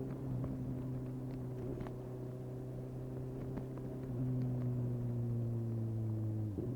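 2019 Suzuki GSX-S750's inline-four engine through a decatted Yoshimura slip-on exhaust with no dB killer, holding steady revs under light throttle, its pitch sagging slightly. It gets a little louder about four seconds in, and near the end there is a brief break in the note, as of a quick gear change.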